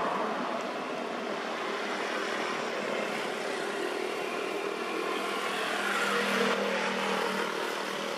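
Road traffic passing on an asphalt road: car tyres and engines, swelling to a peak about six seconds in.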